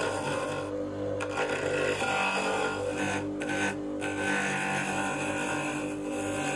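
Bench grinder motor running with a steady hum while an HSS chisel scrapes against a layered wheel blank spinning on its shaft, the grinder being used as a makeshift lathe to turn a belt-grinder wheel.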